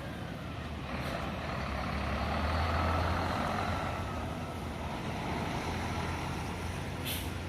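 Intercity coach's diesel engine running as the bus moves through the terminal, growing louder a couple of seconds in and then easing. A short hiss of air, typical of a bus's air brakes, comes near the end.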